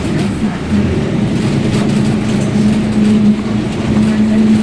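Mercedes-Benz 1724L bus under way, its differential whining very loudly: one steady tone over the running noise, growing stronger and steadier about a second and a half in.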